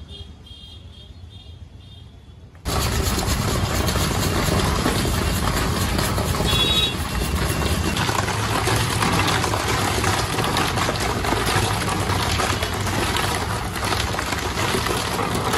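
Steady mechanical running noise, most likely the roller ice cream machine's motor turning the freezing drum, starting suddenly about three seconds in after a quieter stretch with faint high tones.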